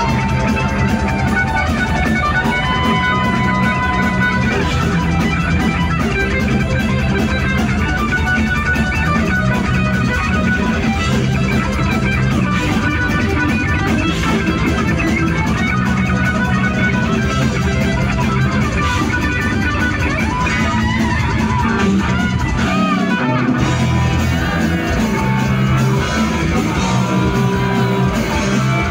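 Heavy metal band playing live in an instrumental passage: electric guitars, bass and drum kit, with a lead guitar holding long sustained notes near the start and bending notes about twenty seconds in.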